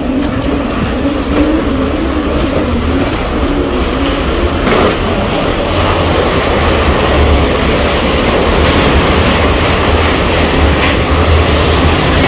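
Loud, steady rumbling noise of an airport jet bridge and walkway, with a wavering hum that fades out in the first few seconds and the rattle of a rolling suitcase's wheels.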